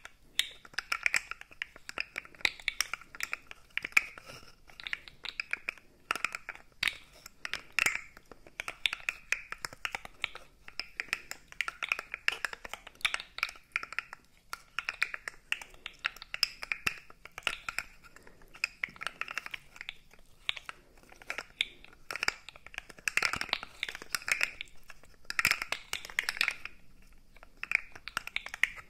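Segmented plastic toy bent and twisted in the fingers close to the microphones. Its joints give a quick, irregular run of small clicks and rattles.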